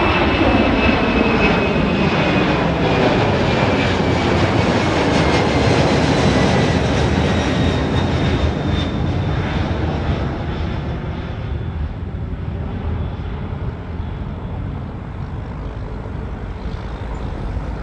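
Jet airliner engines passing and moving away: a loud rushing noise with a high whine that slowly falls in pitch, the whole sound fading gradually over the last several seconds.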